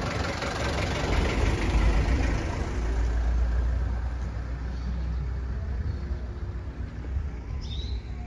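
A motor vehicle's engine running close by: a deep, steady rumble that swells about a second in and eases off toward the end.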